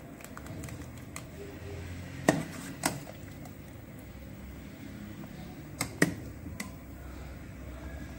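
Metal spoon stirring thick soup in a pot, clinking sharply against the pot twice a little over two seconds in and three more times around six seconds in, over a steady low hum.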